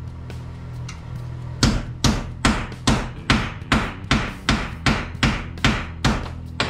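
Steel hammer striking sheet-steel body panel metal in a steady run of about thirteen ringing blows, some two and a half a second, starting about a second and a half in. This is hand-shaping a rust-repair patch, with a steady low hum underneath.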